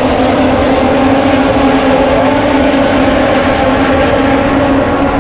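Moto3 racing motorcycles, 250 cc single-cylinder four-strokes, running at high revs in a loud, steady drone.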